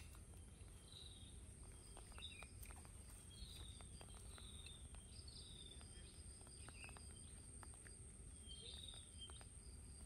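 Quiet birdsong: short, faint chirps come every second or so, over a steady thin high-pitched tone and a few soft clicks.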